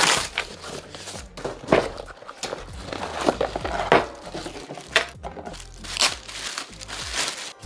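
Packaging crinkling and crackling as it is handled, in irregular rustles with a few sharper, louder snaps.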